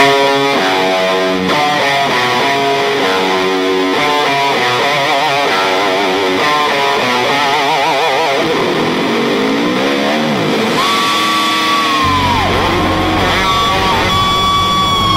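Background music led by a distorted electric guitar playing a run of notes with vibrato, then a long held note that bends down, with bass coming in near the end.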